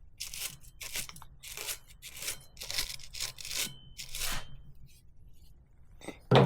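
A brush scrubbing a bicycle front derailleur wet with soapy degreaser, in short, quick strokes about twice a second that stop about four and a half seconds in. A brief louder sound comes just before the end.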